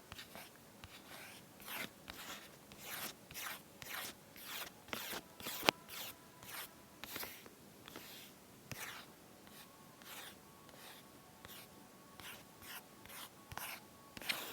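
Series of short, irregular scratching and rustling scrapes, about one or two a second, with a single sharp click about six seconds in.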